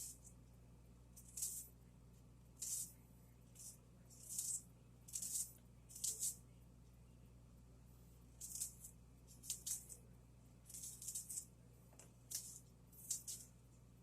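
Salt shaker shaken in short rattling bursts, about a dozen shakes with gaps of around a second, some coming in quick pairs.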